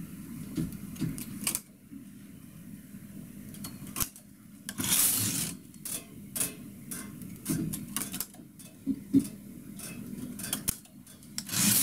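Light metallic clicks and taps of a transfer tool against the needles and latches of a single-bed knitting machine as loops are hung onto the needles. A brief swish about five seconds in.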